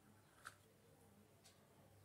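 Near silence with faint ticks about once a second.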